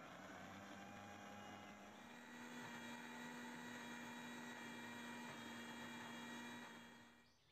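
Electric jar blender motor running steadily, whirling egg, garlic and oil into an emulsified garlic mayonnaise sauce. Its pitch steps up slightly about two seconds in, and the motor winds down near the end.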